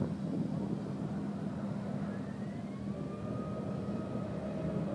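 Airbus A380's four Rolls-Royce Trent 900 jet engines giving a steady, deep rumble as the airliner flies past and climbs, with a faint rising whine coming in about two seconds in.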